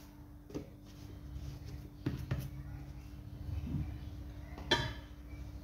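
Hands lifting pieces of semolina dough out of a woven wooden bowl: a few soft knocks and taps against the wood, the loudest near the end, over a low steady hum.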